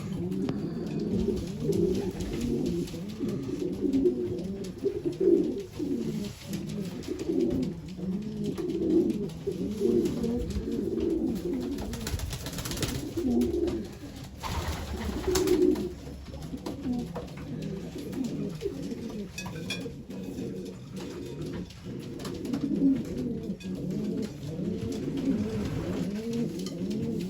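Several domestic pigeons cooing together, many overlapping low coos.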